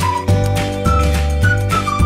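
Music: a high, single-line melody of short notes over a steady bass and a regular beat.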